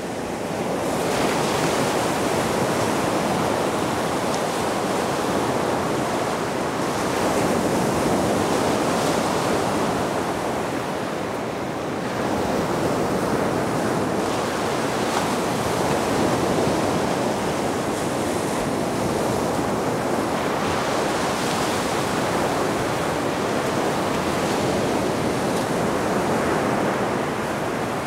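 Baltic Sea surf washing onto the shore, a dense steady wash that swells and eases slowly, with some wind on the microphone.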